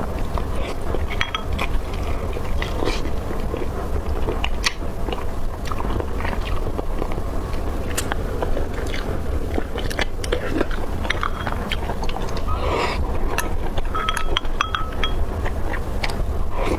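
Close-up chewing and crunching of fried chicken, with many short crisp bites over a steady low hum.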